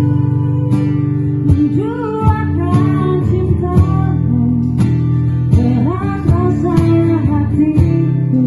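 A woman singing a melody through a microphone to a strummed acoustic guitar, with sharp percussive hits keeping the beat.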